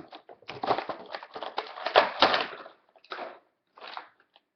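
Action figure packaging crackling and rustling in irregular bursts as it is handled and the figure is pulled out, loudest about two seconds in, with two shorter rustles near the end.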